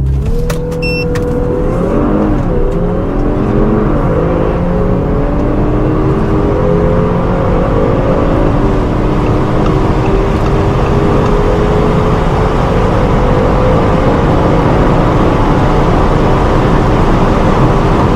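Car engine under hard acceleration through the gears. The pitch climbs, dips briefly at each of several upshifts, then rises slowly in long pulls in the higher gears.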